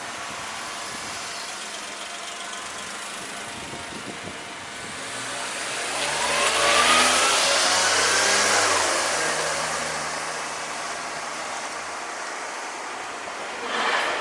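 A motor vehicle drives past, its engine sound swelling over a few seconds and fading away. Near the end a train starts to clatter over the rails.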